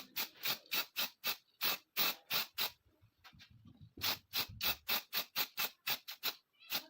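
Quick, even strokes of hand scraping or abrasive work on a pistol part, about three to four a second, with a pause of about a second a little before the middle.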